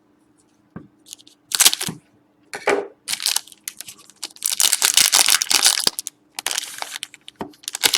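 A trading card pack's wrapper being torn open and crinkled by hand, in a run of rustling, crackling bursts, the longest one in the middle.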